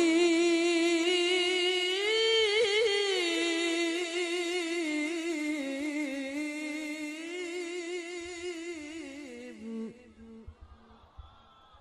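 Male Quran reciter's voice chanting in melodic tilawah style through a microphone, drawing out one long ornamented note with a wavering pitch. The pitch rises briefly about two seconds in, then the note slowly fades and stops about ten seconds in.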